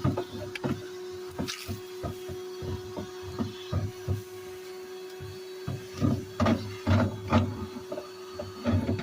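Vacuum cleaner running with a steady hum through a long, flexible dryer-vent hose attachment. Irregular knocks and rattles come from the hose working down inside the dryer and debris being sucked up it, busiest past the middle.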